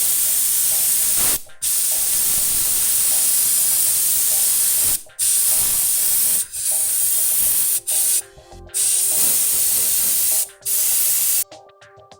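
Paint being sprayed in loud hissing bursts, about six of them with short breaks between, stopping shortly before the end.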